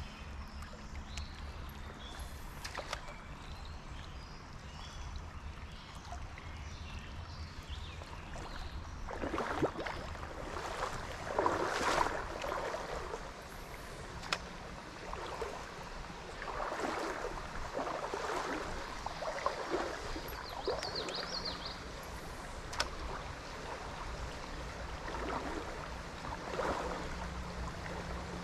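Shallow stream running steadily over a rocky bed, with louder swishing surges that come and go every few seconds, strongest about ten to thirteen seconds in.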